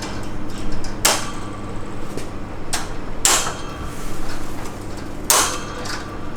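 Plastic clips of a Hagen Vision bird cage being snapped onto its wire panels: a few sharp snaps about two seconds apart, the loudest near the end, with light handling rattle of the parts between.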